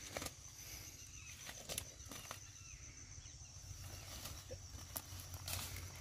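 Faint rustling of tall grass and weeds underfoot, with scattered light snaps and clicks, as a person walks through waterside vegetation.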